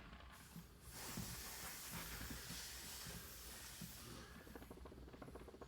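Air hissing out of a pressurised e-scooter tire's open valve stem for about three seconds as the valve core is screwed back in. It fades near the end into a fast run of small ticks.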